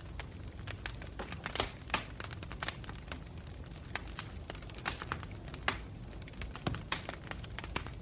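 Fire crackling: irregular sharp pops and snaps, some louder than others, over a steady low noise.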